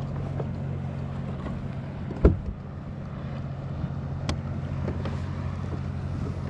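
Steady low drone of a boat engine running, over the wash of water and wind around the kayak. A single sharp knock about two seconds in, and a fainter click a couple of seconds later.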